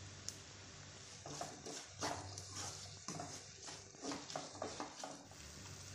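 Wooden spatula stirring sliced onions, tomatoes and herbs in a non-stick pan: irregular scraping and rustling strokes, over a faint steady low hum.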